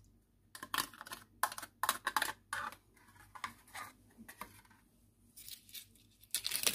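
Paper or plastic packaging crinkling and tearing in irregular short crackles, as a sachet of Danette dessert mix is opened.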